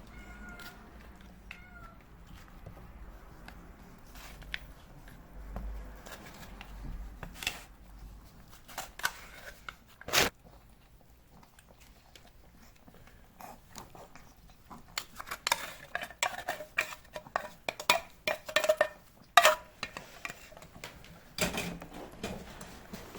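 Cats meowing a few times, with sharp clicks and knocks around them, one loud knock about ten seconds in and a quick run of clicking and clattering from about fifteen to twenty seconds in.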